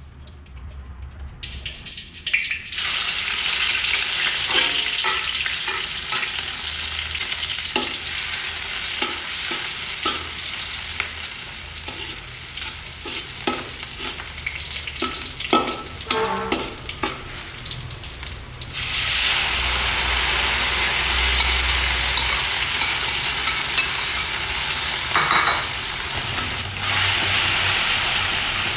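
Chopped garlic and chilies sizzling in hot oil in an iron wok, starting loud about two seconds in, with a metal spatula scraping and tapping the wok as they are stir-fried. About two-thirds of the way through the sizzling becomes louder and more even.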